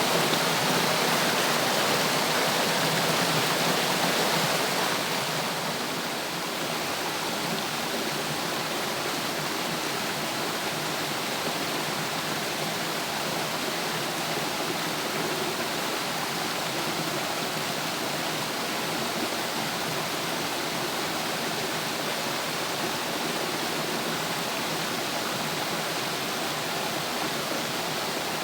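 Water rushing steadily over a cascade. About five seconds in it turns a little quieter and less hissy, then stays steady.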